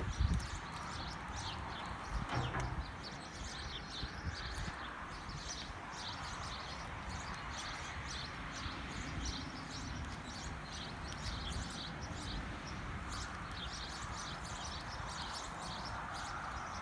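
Small birds chirping continually in the background, short high chirps over a low steady rumble.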